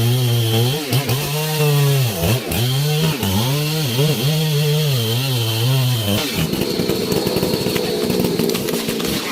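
Chainsaw engine running hard through a cut, its pitch repeatedly dipping and recovering as the chain bogs under load. About six seconds in the steady note breaks off into a rougher, noisier engine sound.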